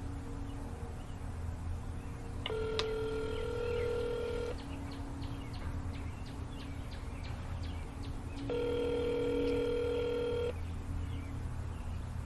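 Telephone ringback tone of an outgoing call ringing unanswered: two rings, each a steady two-second tone, about six seconds apart, over a steady low hum.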